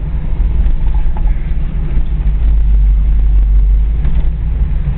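Engine and road rumble of a 1970s car heard from inside its cabin while driving, a steady low rumble.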